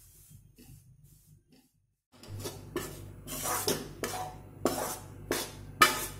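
A metal spoon scraping and knocking against a metal kadai as gram flour (besan) roasting in ghee is stirred. Faint soft scraping at first, then from about two seconds in sharper strokes about twice a second, the loudest near the end.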